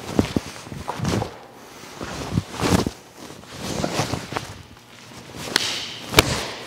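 Bare feet stepping, stamping and pivoting on foam mats, with the swish of a taekwondo uniform at each block, strike and kick of the poomsae. Two sharp smacks from strikes near the end, the second the loudest.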